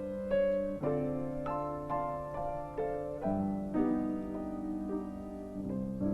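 Piano playing a song melody over held chords, one note or chord struck after another.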